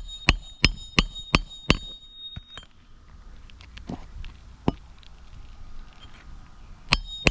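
Hammer striking metal to drive roofing nails into three-tab asphalt shingles: six quick ringing blows, about three a second, then a few light taps and two more blows near the end. The impact is cracking the brittle shingles around the nails.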